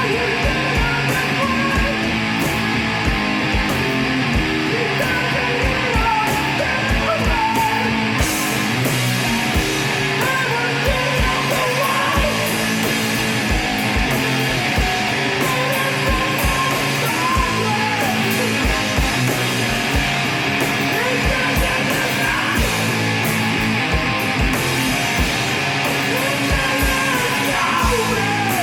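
Rock band playing live: loud electric guitars and drums hitting steadily, with vocals over the top.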